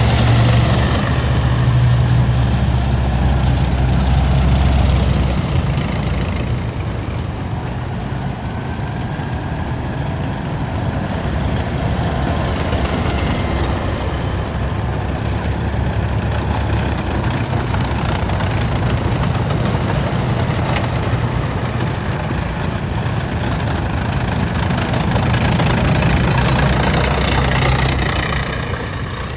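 Heavy military vehicles' diesel engines running as a column passes. A deep, steady engine drone swells near the start and again near the end as individual vehicles go by.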